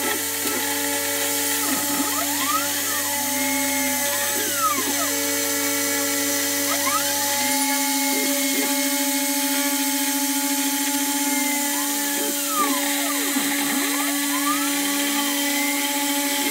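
DIY CNC router milling 6082-T6 aluminium with a 4 mm two-flute end mill: the high-speed spindle gives a steady whine over the cutting noise. Rising and falling whines come and go several times as the machine speeds up and slows along the part profile.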